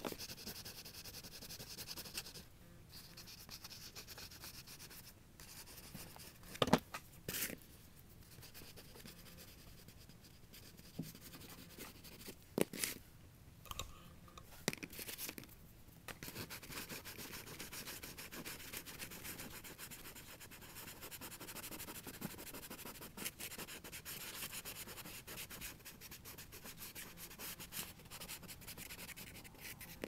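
Pastel stick rubbing and scraping on paper in quick back-and-forth strokes, colouring in an area of a drawing. There are a few sharp taps in the first half.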